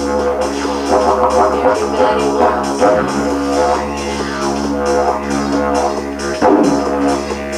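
Didgeridoo playing a steady low drone, its overtones pulsing in a regular rhythm.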